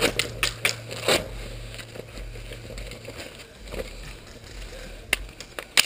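Airsoft rifle magazine and gear being handled during a reload: a run of sharp clicks and knocks in the first second, then quieter rustling with a few scattered clicks, one sharp click near the end.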